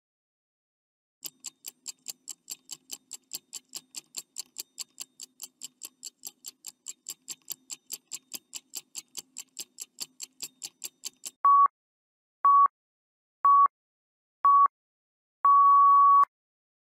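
Countdown timer sound effect: a clock ticking about four times a second, then four short beeps a second apart and a final longer beep marking time up.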